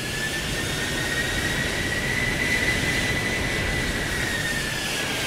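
Stratolaunch carrier aircraft's wing-mounted turbofan engines, taken from Boeing 747s, running with a whine over a rushing noise. The whine climbs in pitch for the first couple of seconds as the engines spool up, then eases slightly.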